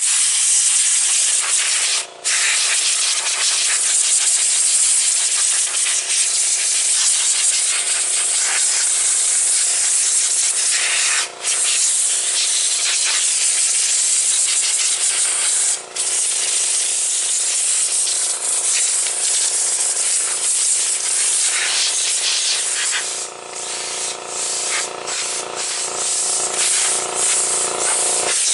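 Compressed-air blow gun hissing as it blows dust out of a kotatsu heater unit's grille: long blasts broken by three brief releases, then short on-off puffs in the last few seconds. A steady hum runs underneath.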